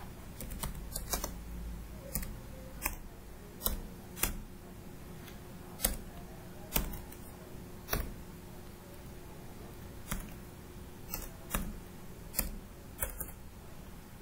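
Computer keyboard keystrokes, slow and irregular, about one or two clicks a second, as a line of code is typed.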